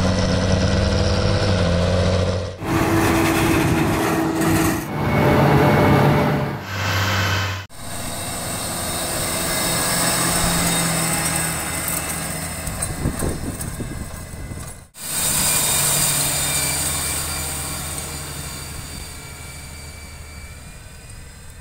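The diesel engine of a John Deere 8370RT tracked tractor running steadily under load as it pulls a soil-preparation implement across a field. The sound comes as a series of short clips, and its note and loudness change abruptly at each cut. Near the end it fades as the tractor moves away.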